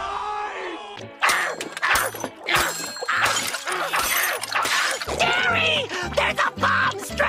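A cartoon scream fading out, then after a cut a loud crashing clatter for about four seconds, then music with a steady bass line.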